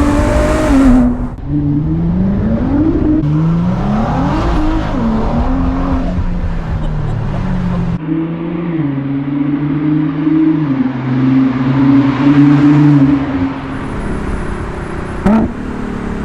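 Ford GT's engine through a QuickSilver aftermarket exhaust, accelerating hard several times, its note climbing in pitch and dropping back at each gear change. After that it runs steadier with stepped changes in pitch, and gives a sharp crack near the end.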